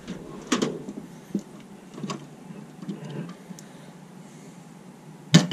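Steel tool chest drawer pulled open, then loose screwdrivers and hand tools rattling in the drawer as a hand sorts through them, with a loud sharp knock near the end.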